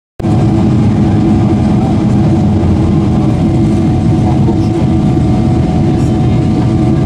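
Cabin noise inside a Boeing 777-300ER in flight on its descent: a steady rush of air and engine noise with a few steady hums from its GE90-115B turbofans. It starts abruptly just after the opening.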